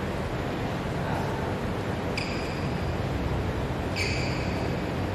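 Two badminton racket strikes on the shuttlecock, about two seconds in and four seconds in, each a sharp hit with a short ringing ping, over a steady low hum of the hall.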